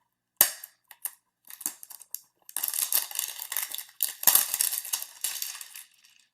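Trading card hanger box being opened by hand: a sharp snap, then crackling plastic wrapping being torn and crinkled.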